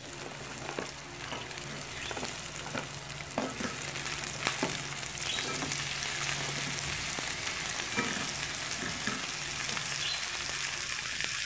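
Oil sizzling in a wok around frying ginger, garlic, onion, chili and lemongrass as raw blue swimmer crabs are laid in, a steady frying hiss. Scattered clicks and knocks come from the crab shells against the pan.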